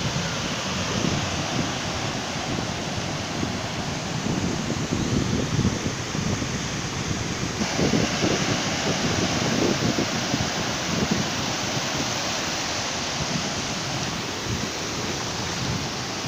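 Sea surf breaking and washing up a sandy beach in a steady rush, with wind buffeting the microphone in uneven low rumbles that are strongest about halfway through.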